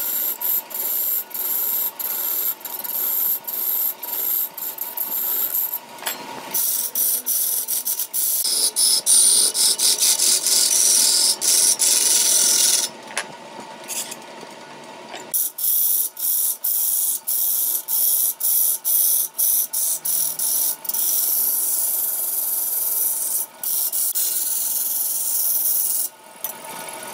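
A heavy turning tool scraping shavings off a large root-wood blank spinning on a big wood lathe: a harsh, steady hiss broken by many brief gaps. About halfway the cutting stops for a couple of seconds while the lathe keeps running, then the scraping resumes.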